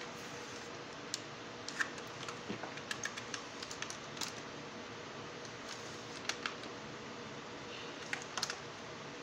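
Irregular sharp clicks and taps of hard plastic parts as a toy RC drift car's plastic chassis and differential housing are handled and pried at, coming in small clusters.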